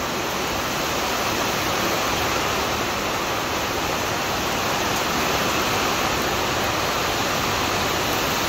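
Heavy downpour of big-drop rain, driven sideways, falling steadily onto wet pavement and puddles.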